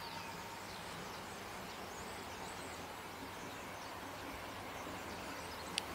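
Steady outdoor background noise with faint, scattered bird chirps, and one sharp click near the end.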